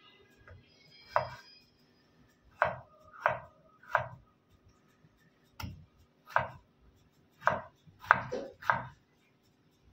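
Kitchen knife slicing through tomatoes and knocking on a wooden cutting board: about ten separate cuts at an uneven pace.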